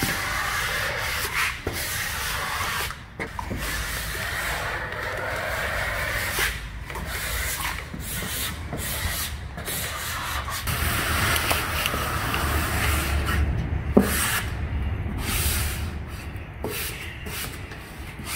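Squeegee rubbing in repeated strokes over a wet vinyl decal on a boat hull, pushing out the soap-and-water solution and air bubbles from under the film.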